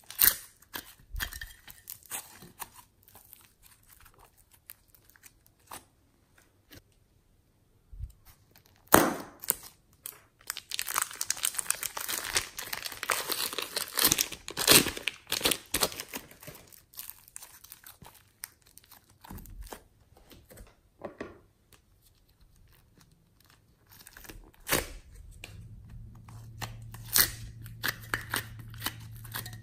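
Pink foam clay being torn and peeled out of a thin clear plastic mold, with the plastic crinkling and crackling in scattered bursts and a dense run of crackling in the middle. A low steady hum comes in near the end.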